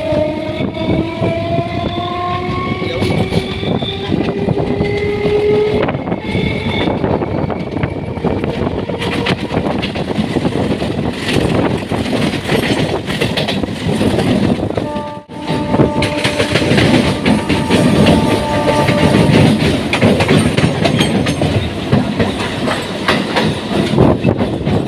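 Electric suburban local train running, its wheels clattering over the rail joints. In the first few seconds a whine rises slowly in pitch as the train picks up speed. About 15 s in the sound briefly drops out, then a few steady tones sound over the running noise for several seconds.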